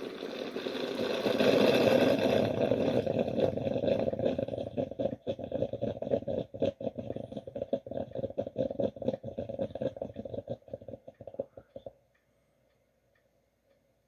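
Swan Teasmade's kettle at a full boil: a loud rushing, bubbling sound that turns into irregular spluttering and gurgling, then stops abruptly near the end.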